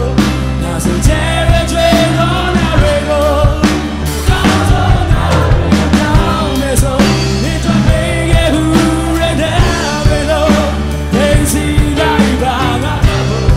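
Live rock band playing: a drum kit with crashing cymbals, piano, and a singing voice.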